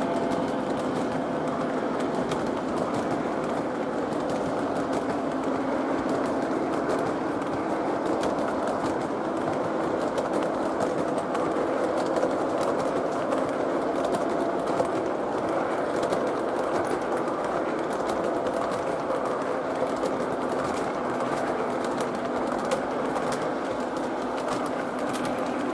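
O gauge model boxcars rolling past on three-rail track: a steady rolling rumble of metal wheels, peppered with many light clicks.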